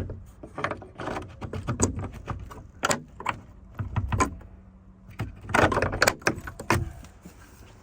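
Latch and lock on a homemade toilet door being worked: a run of sharp clicks, rattles and knocks, with a busier cluster about five and a half seconds in.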